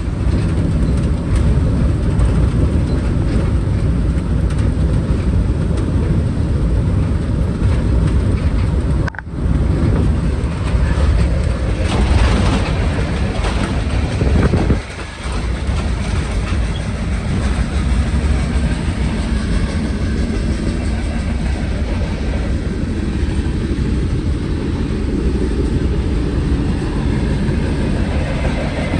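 Delivery vehicle driving: steady engine and road noise heard from inside the cab, with two brief dips about 9 and 15 seconds in.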